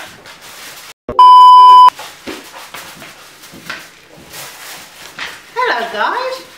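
A censor bleep: a loud, steady electronic beep lasting under a second, starting abruptly about a second in after a moment of dead silence and cutting off sharply.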